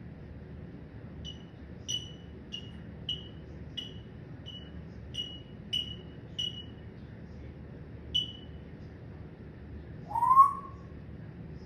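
Parrot giving a run of about ten short, high chirps, roughly one every half second to second, then one louder, lower call that rises and falls near the end.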